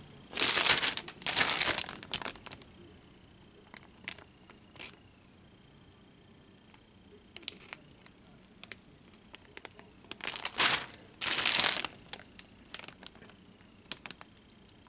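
Clear plastic bags holding plastic model-kit sprues crinkling as they are handled, in two bouts of loud rustling, one about a second in and another around ten seconds in, with scattered small clicks and crackles between.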